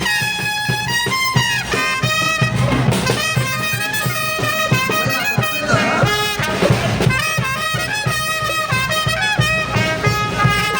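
A brass band led by trumpets plays a lively Andean dance tune for the Negritos dance, with held and moving melody notes over a steady drum beat.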